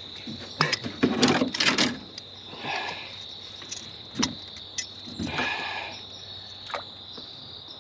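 Crickets chirring steadily at a high pitch. Over them come scattered clicks, knocks and rustles as a caught bass is handled in the boat, loudest about a second in.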